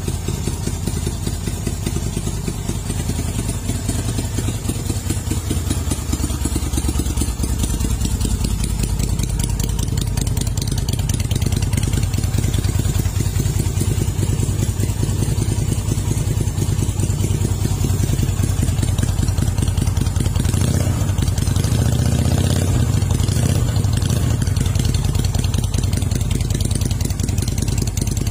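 Kaisar Ruby 250 motorcycle's V-twin engine idling with an even, steady beat. About two-thirds of the way through it is briefly revved, then settles back to idle.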